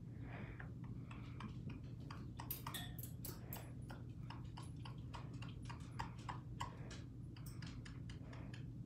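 Irregular run of sharp clicks and taps, several a second, from a white-bellied caique moving about on its perch, over a steady low hum.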